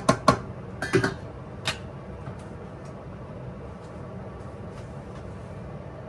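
Cookware being handled: a handful of sharp clinks and knocks of metal and utensils in the first two seconds, then a steady low hum.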